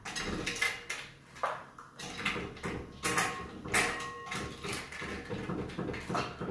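Ice cubes, glass and a metal shaker tin clinking and knocking while a cocktail is built in a wine glass: a dozen or so irregular clinks and knocks.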